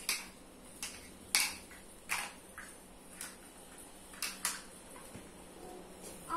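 Small plastic toy kitchen pieces clicking and knocking together as they are handled, about eight light knocks at uneven intervals.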